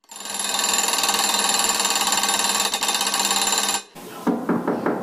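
Alarm clock bell ringing loudly and continuously with a fast rattling strike, cutting off suddenly near the end; a few quick knocks follow.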